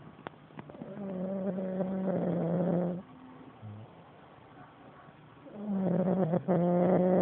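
A person snoring: two long snores of about two seconds each, the first starting about a second in and the second near the end, each holding one steady droning pitch.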